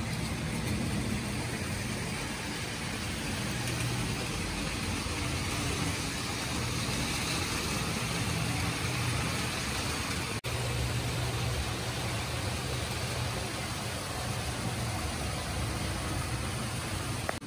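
O scale model trains running on the layout: a steady rumble of wheels on track with the hum of their motors. The sound drops out for an instant about ten seconds in.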